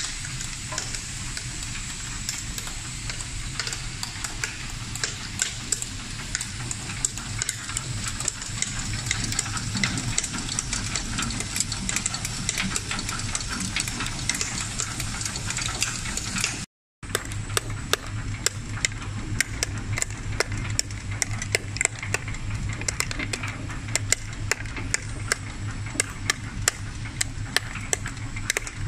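Rotary tablet press running as it presses effervescent tablets: a steady motor hum and a high whine under a rapid, irregular clatter of sharp clicks from the punches and turret. The sound cuts out briefly about two-thirds of the way through.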